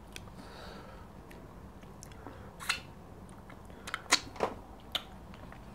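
Close-up eating sounds: wet mouth smacks and chewing as fufu and meat in ogbono soup are eaten by hand. There are a few short, sharp smacks in the second half.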